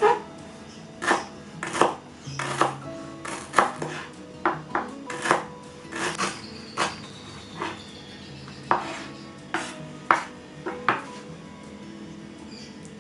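Kitchen utensils and cookware knocking and clattering in irregular sharp strikes, about one or two a second, stopping about eleven seconds in, over soft background music.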